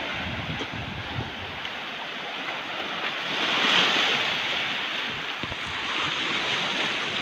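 Small waves breaking and washing over a rocky, pebbly shore, with wind buffeting the microphone. A wave surge swells up about three and a half seconds in, then eases off.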